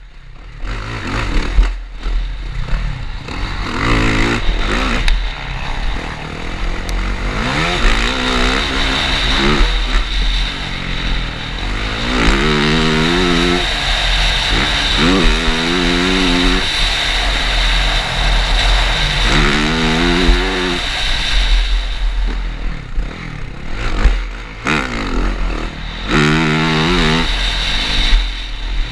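Yamaha motocross bike's four-stroke engine at race pace, heard on board: it revs up in a string of rising pulls as it accelerates through the gears, easing off briefly near the start and again later, over a steady rush of wind and track noise.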